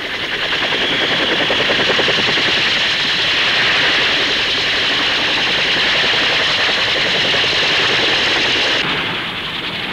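Fairey Rotodyne compound helicopter in flight: loud, steady rotor and engine noise with a rapid flutter running through it. The sound turns duller near the end.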